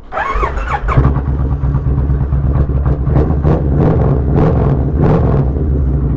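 Kawasaki Vulcan 1500 Nomad's V-twin engine cranked on the electric starter with a rising whine, catching about a second in and settling into a steady, uneven cold-start idle on partial choke.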